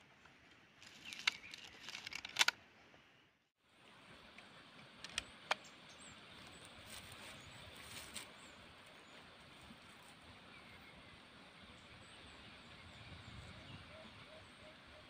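Faint outdoor background with a cluster of sharp clicks and taps in the first few seconds and two lighter clicks a little later.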